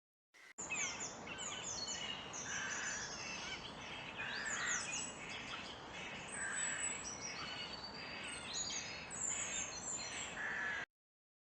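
Many birds chirping and calling over a steady outdoor background hiss: quick falling chirps high up and short calls repeated every second or two. The sound starts and stops abruptly.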